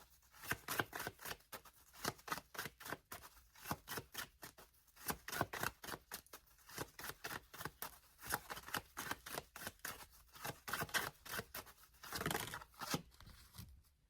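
Tarot deck being shuffled by hand: an irregular run of short card snaps and taps, several a second.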